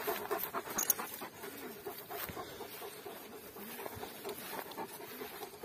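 Dogs panting, short breaths in quick succession.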